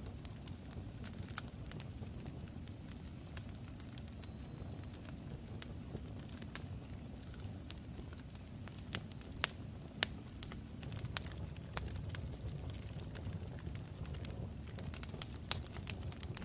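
Wood fire crackling: scattered sharp pops over a steady low rumble, with two louder pops about nine and ten seconds in. A faint high whistle runs through the first half.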